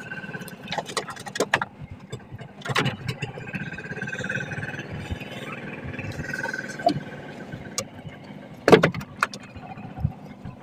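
Small boat engine running steadily with a fast, even low chug. Several knocks and clicks from handling gear in the wooden boat, the loudest about nine seconds in.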